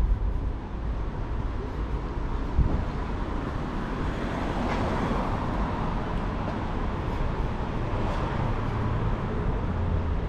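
Street traffic noise with a low, steady rumble, and one vehicle swelling past about halfway through.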